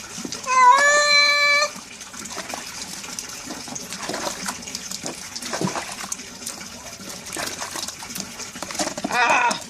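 A cat gives one long meow about half a second in, rising then held level for about a second, a cry that sounds like the name "Raúl". Running water hisses underneath, and a short cry comes near the end.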